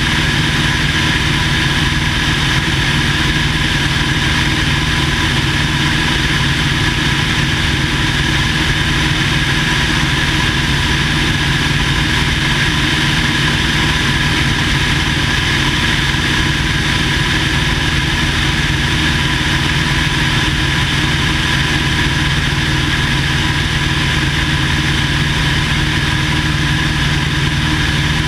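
1950 Cessna 170A's six-cylinder Continental engine and propeller running steadily at an unchanging speed, with several steady tones over a constant noise.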